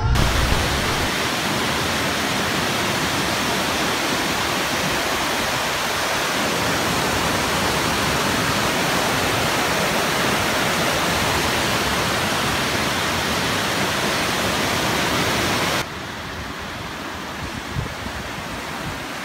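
Water pouring over a river weir: a loud, steady rush. About sixteen seconds in it drops to a quieter, duller rush.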